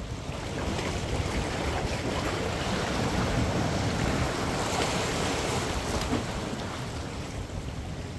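Ocean waves surging and washing against the boulders of a rock jetty. The surge builds about half a second in and eases off near the end.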